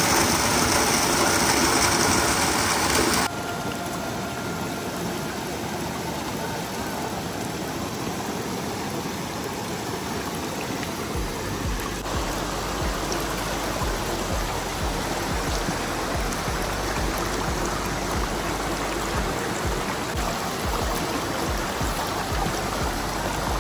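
Mountain spring water running steadily. Its rush drops abruptly to a quieter flow about three seconds in. Irregular low bumps come in from about halfway.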